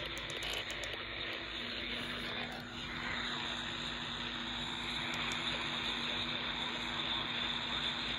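Steady hiss and static of AM radio reception, with a faint steady low hum underneath.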